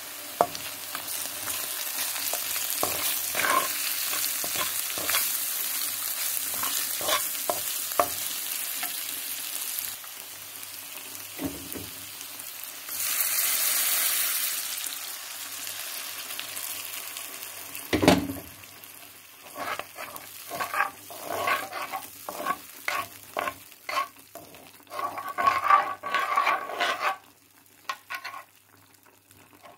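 Onions and spices sizzling in hot oil in a frying pan, with a metal spoon scraping and clinking against the pan as it stirs. About halfway, water is poured in and sets off a louder hiss for a couple of seconds. This is followed by a knock and a run of spoon clinks as the sauce is stirred, then the sound dies down near the end.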